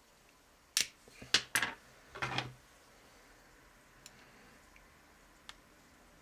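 Sharp metallic clicks and a short scraping rattle as the thin steel casing of a microwave turntable's synchronous motor is pried at with a screwdriver: three clicks in the first two seconds, a scrape a little after two seconds, then two faint ticks.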